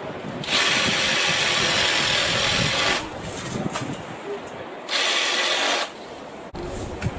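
BLACK+DECKER 18V cordless power saw running and cutting garden-tree branches in two bursts: a longer run of about two and a half seconds starting half a second in, then a shorter one of about a second.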